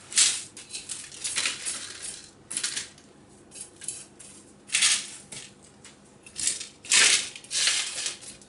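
A knife blade scraping and breaking away a baked salt-and-egg-white crust that has set hard, with loose salt crumbs crunching and rattling over baking paper on a baking tray. The scrapes come irregularly, loudest about five and seven seconds in.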